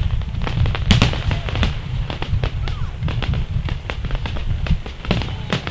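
Aerial firework shells bursting in a dense volley: many sharp bangs in quick succession over a continuous low rumble, the loudest about a second in.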